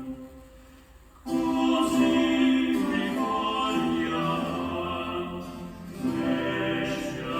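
Music with singing played back through Kenwood CM-7ES monitor speakers driven by a Sony STR-DE197 receiver in a sound test. One passage fades out at the start, and after a short lull new music comes in suddenly about a second in.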